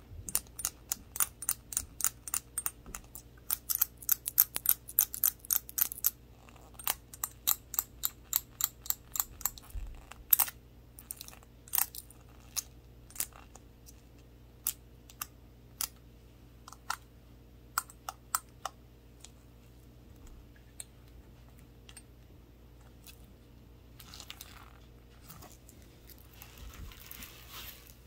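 Toothpick gloves tapping a small shot glass with a handle: fast runs of light, sharp taps, about four a second, for the first several seconds, thinning to scattered single taps after about ten seconds, with a faint rustle near the end.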